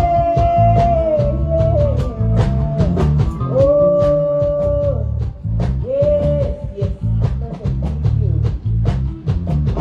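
A live band plays through a PA during a sound check: drum kit and bass keep a steady beat under a lead line of long held notes, heard three times.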